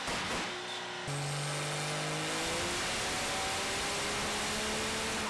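Diesel pickup engine revving hard under load, its pitch climbing steadily over a loud rushing exhaust. A sudden cut about a second in jumps from one run to another.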